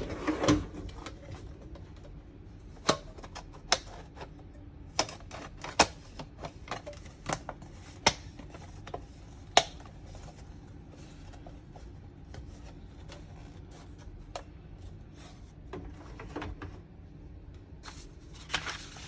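Hard plastic diorama parts clicking and knocking as they are handled and fitted together. Sharp irregular clicks come thick in the first half and grow sparse after, with a brief rustle near the end.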